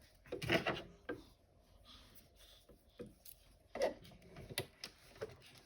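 Scattered light clicks and knocks of small objects being handled and set down on a tabletop, the loudest about half a second in and again near four seconds in.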